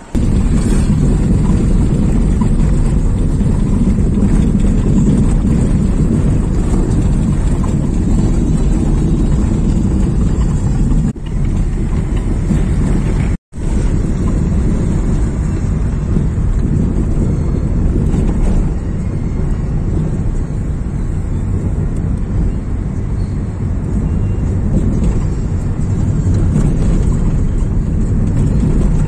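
Steady low rumble of a moving vehicle, engine and road noise together. It cuts out for an instant about 13 seconds in.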